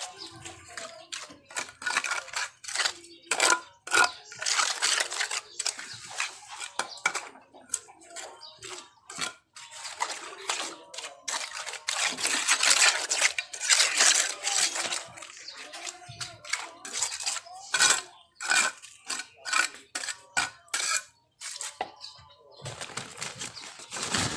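Steel trowel scraping and tapping over wet cement on a concrete floor as a coat of neat cement is spread and smoothed. It goes in repeated scraping strokes broken by short, sharp clicks.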